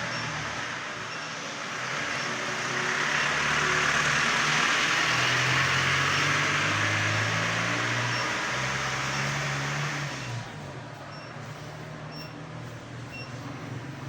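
Motor vehicle running close by, with engine hum and road noise that grow louder for several seconds and then drop away about ten seconds in.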